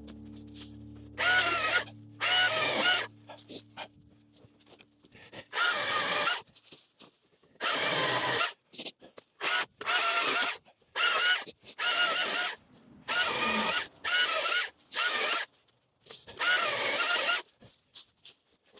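Battery-powered electric motor of a cordless yard tool revved in about a dozen short trigger bursts, each spinning up and winding down, with short pauses between them.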